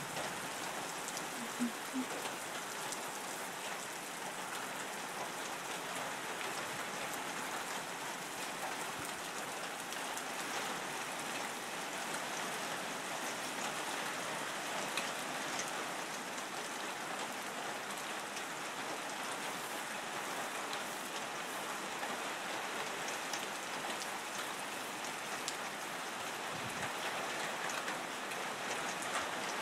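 Steady rain falling on the leaves of the surrounding woods, an even hiss with scattered sharper drips.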